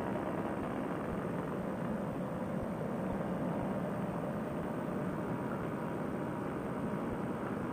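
Fresh Breeze Monster two-stroke paramotor engine and its propeller running steadily at cruise power in flight, a constant drone mixed with rushing wind.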